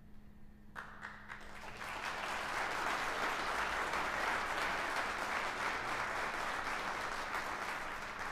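Audience applauding: a few scattered claps about a second in that swell into steady, full applause.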